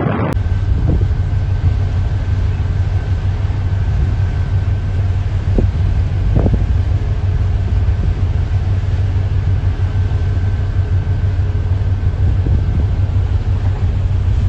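Ship's engine running with a low, steady rumble, heard on board a salvage vessel.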